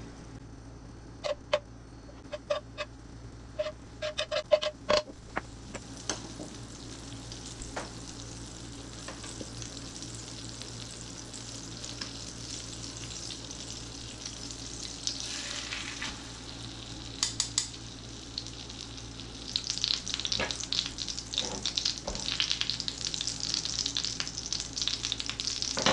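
Butter and olive oil sizzling in a frying pan, with a few taps of a fork against the pan in the first five seconds. About twenty seconds in, a breaded chicken breast goes into the foaming butter and the sizzle grows louder.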